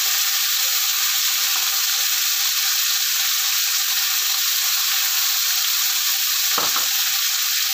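Red snapper heads sizzling steadily in hot frying oil in a wok, with a single knock near the end.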